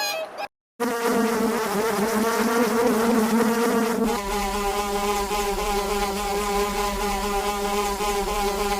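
A flying insect buzzing continuously. About four seconds in the buzz settles to a slightly lower, steadier pitch and a low rumble joins it.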